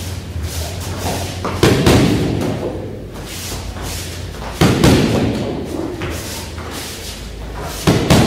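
Boxing-gloved punches and a front kick smacking into hand-held striking pads (Pratzen), a quick cluster of hits about every three seconds, each cluster echoing in the hall. Each cluster is one run of the jab, punch, front-kick combination.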